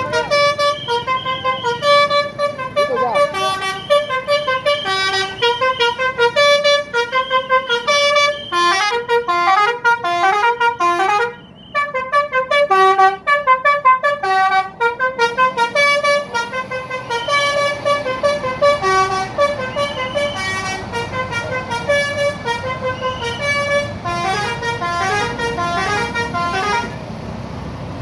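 Indonesian bus 'telolet' musical air horns (Basuri horns) playing quick stepped tunes of short notes, over and over. There is a brief break about eleven seconds in.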